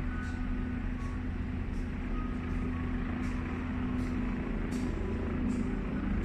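Steady low engine rumble with a constant hum, and faint short high hisses recurring irregularly about once a second.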